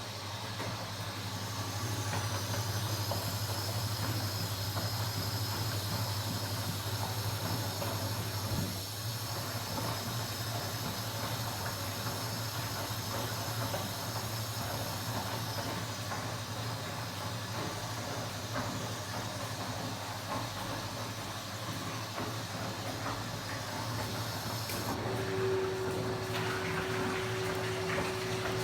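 Kenwood washing machine running through a cycle: a steady hum under a hissing, watery wash. About 25 seconds in, a new steady hum starts.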